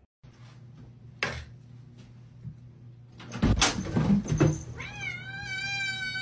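Domestic cat meowing: one long meow on a steady pitch near the end. Before it, a knock and then a clatter as a door opens.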